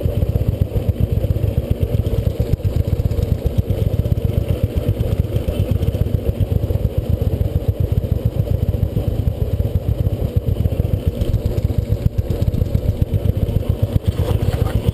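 Motorcycle engine idling steadily, with a fast, even low pulse.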